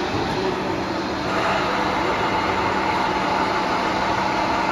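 A large CNC bed-type milling machine running, its axis drives making a steady whine over a low hum as the head and column move. It gets louder about a second in.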